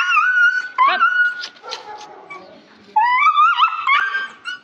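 A dog whining and yelping in high, wavering cries while it is held down for treatment to its ear. The cries come in two spells with a quieter pause between them.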